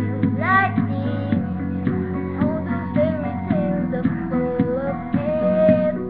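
Young girl's voice singing a melody in long, bending held notes over strummed acoustic guitar.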